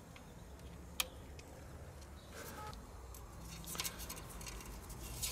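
Faint clicks and rattles of gloved hands handling fittings and hoses on a diesel engine, with one sharp click about a second in and a brief scrape in the middle, over a low steady hum.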